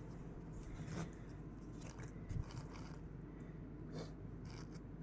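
Faint handling noises from cross-stitch kit items being moved about by hand: a few soft clicks and crinkles, spaced a second or more apart, with a small cluster near the end.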